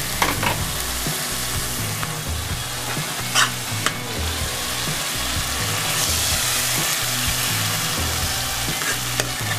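Spice masala with fresh tomato pieces frying in oil in a metal pan and being stirred with a ladle: a steady sizzle, with a few clicks of the ladle against the pan.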